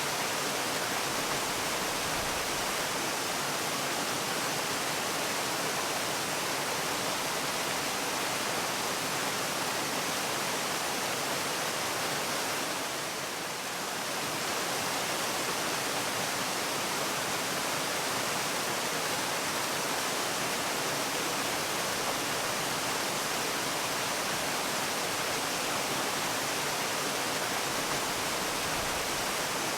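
Steady, even rush of falling water from a waterfall, with a slight brief dip in level about halfway through.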